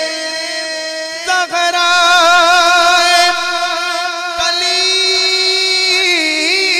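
A man singing a Punjabi naat solo into a microphone, holding long drawn-out notes with a wavering ornament. The voice breaks off briefly a little over a second in and again past four seconds, each time starting a new held phrase.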